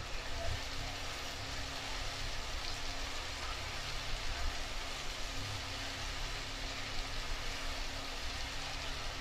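Chopped tomatoes and onions sizzling steadily in hot oil in a nonstick frying pan while a spatula stirs them.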